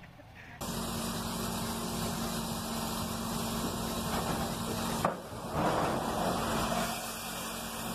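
Truck engine running with a steady low hum while a grain tipper semi-trailer's hydraulic ram raises the body, starting abruptly about half a second in. About five seconds in there is a sharp knock, then a louder rushing noise as the load shifts and dust and grain begin to pour.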